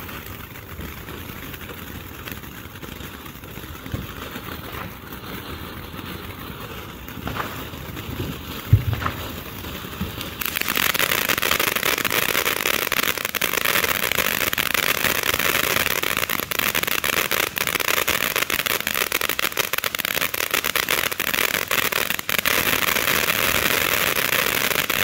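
Pagoda Glowing Lotus ground fountain firework spraying sparks with a steady hiss, broken by a single thump; about ten seconds in it jumps to a much louder stage of dense crackling.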